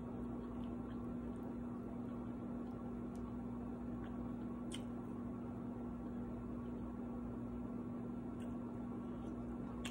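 Steady low electrical hum with an even background hiss, like a running household appliance, broken only by a faint soft click about halfway through and another near the end.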